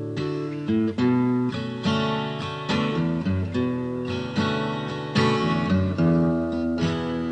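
Acoustic guitar music: plucked and strummed chords, new notes struck about every half second.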